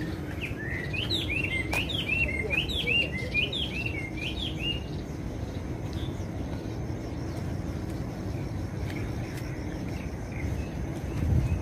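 A songbird singing a quick run of short chirped notes, several a second, for the first four or five seconds, over a steady low rumble. A brief low thud near the end.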